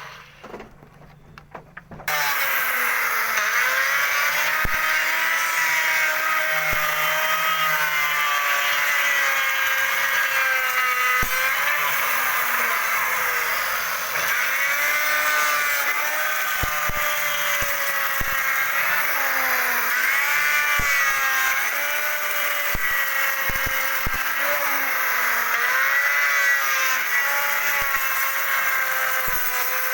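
Electric wood router running loud, starting about two seconds in; its high motor whine dips in pitch and recovers again and again as the bit is loaded cutting wood.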